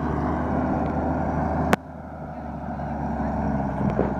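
Vehicle engine idling steadily, with one sharp click a little under two seconds in, after which the sound is quieter.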